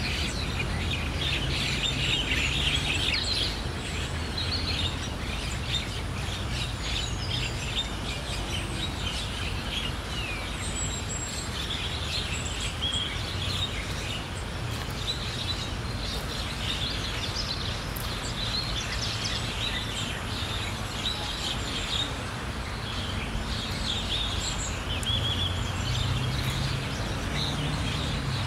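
Background birdsong: many small birds chirping and calling throughout, over a steady low hum.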